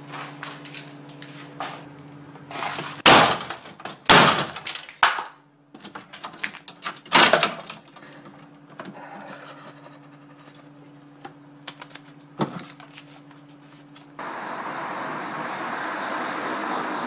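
Several sharp knocks and clatters, the loudest about three, four and seven seconds in, over a steady low electrical hum. About fourteen seconds in, the sound cuts to steady night-street noise with distant traffic.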